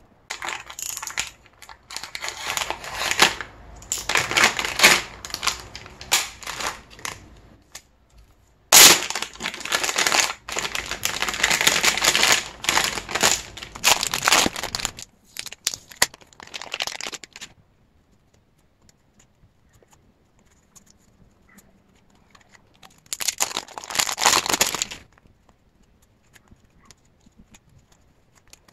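Plastic packaging crinkling and being torn open: a plastic mailer bag is unsealed and photocards are pulled out of clear plastic sleeves, in bursts of rustling with a sharp crack about nine seconds in. The rustling stops for several seconds in the second half, then comes back briefly.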